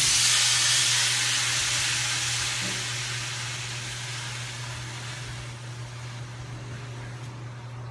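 Wet towel pressed onto a freshly torch-soldered, still very hot copper pipe joint, sizzling and hissing as the water flashes to steam to cool it. The sizzle is loudest at the start and fades steadily as the joint cools.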